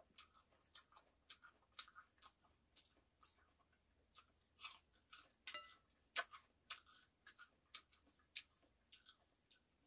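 Persimmon slices being chewed: a faint, irregular run of short mouth clicks and smacks, about two or three a second.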